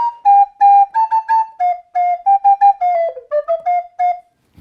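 A homemade whistle pieced together from recorder parts plays a quick tune of short, separately tongued notes. The pitch steps down overall, and the tune ends about four seconds in.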